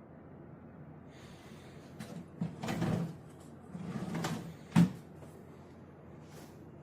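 An MDF kitchen cabinet's doors and drawers being worked by hand: two stretches of sliding and scraping, then a sharp knock about five seconds in as something shuts.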